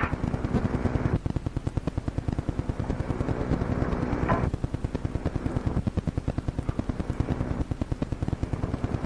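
Dispatch-office telegraph equipment clicking rapidly and evenly, about ten clicks a second, over a steady electrical hum.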